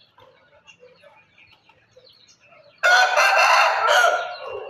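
Black Aseel rooster crowing once, loudly, starting about three seconds in and trailing off near the end, after a few faint soft clucks and chirps.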